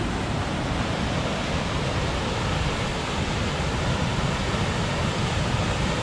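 Water of the River Aire rushing over a weir in a steady, unbroken noise; the river is running high and forceful after rain.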